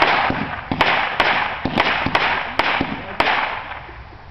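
Fireworks going off: a run of about six sharp bangs, roughly half a second apart, over a hissing, crackling burn that dies away after about three and a half seconds.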